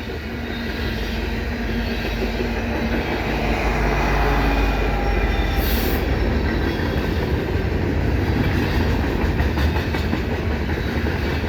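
CN freight train rolling past: a steady low rumble of wheels on rail with some clickety-clack, over the hiss of heavy rain. There is a brief high hiss about six seconds in.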